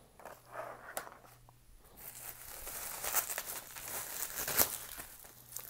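Plastic packaging crinkling and rustling as it is handled and pulled apart to get the next boxed diecast car out of the shipping box. There are a few light clicks early on, then a denser crackling run through the middle.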